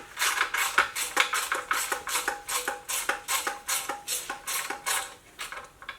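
Rapid metallic clicking and tapping from hand tools on engine parts, about five strikes a second, each with a short ring; it thins out near the end.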